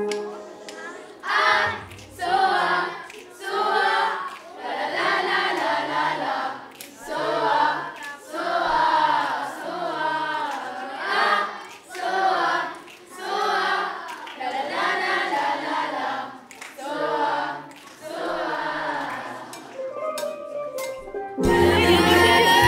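A large group of children's voices singing together in short phrases, about one a second, over a low bass line. Near the end a steel drum band comes in loudly.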